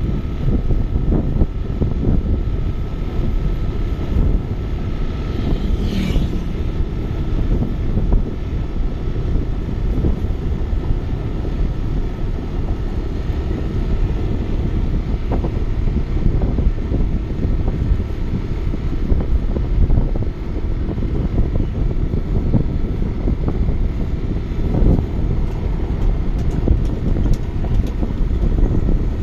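Wind buffeting the microphone over the steady low rumble of a moving vehicle riding across a road bridge, with a brief higher-pitched sound about six seconds in.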